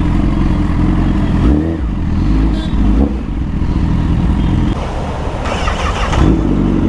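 Honda Fireblade superbike's inline-four engine running at low revs as the bike rolls slowly, with a short hissing noise about five and a half seconds in.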